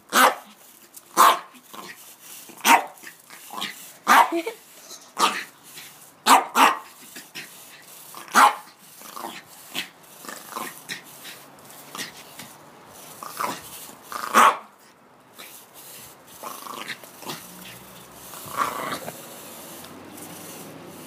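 Dog barking at a broom pushed toward it: a long series of sharp single barks, roughly one a second, that thin out and soften in the last few seconds.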